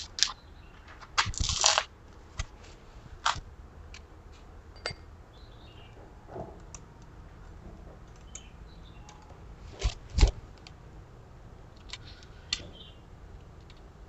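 Metal clicks and clinks of a bicycle chain and Shimano Tourney rear derailleur being handled, with a short rattle about a second in and two sharper knocks near ten seconds.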